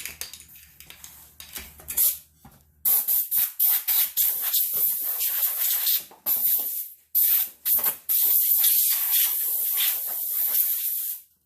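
Compressed-air blow gun on an air hose hissing as it blows dust and debris off a lawn mower: a string of short blasts starting about three seconds in, then one long blast that cuts off suddenly near the end.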